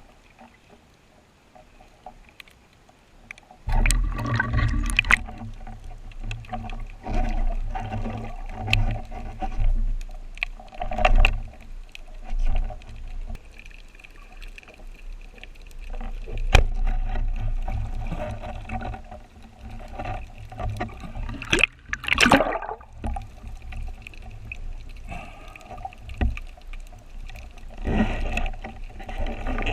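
Water sloshing and gurgling around a spearfisher's camera, with a deep rumble and scattered knocks, starting suddenly a few seconds in.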